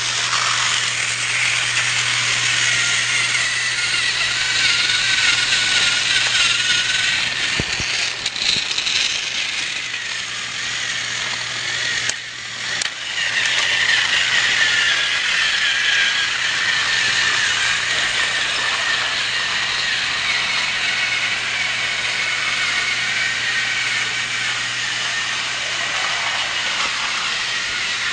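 Battery-powered TrackMaster toy train running on plastic track: a steady rattling whir of its small motor and gears, with a whine that wavers slightly in pitch. The sound dips briefly about twelve seconds in.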